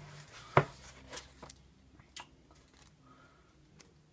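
Handling noise of paper coloring pages being picked up and sorted: one sharp click about half a second in, then a few fainter clicks and short rustles.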